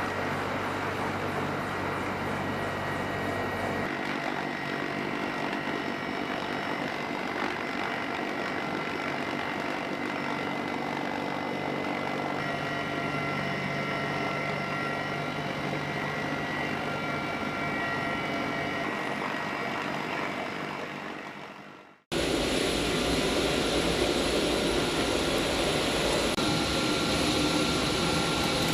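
Steady aircraft engine noise with a few fixed high whining tones over it. It fades out about 22 seconds in, then cuts to a louder, deeper stretch of aircraft noise.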